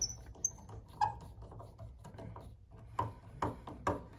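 Screwdriver driving a screw into a Steinway piano's pedal assembly, giving short creaking clicks as the screw turns: one about a second in, then three in quick succession near the end.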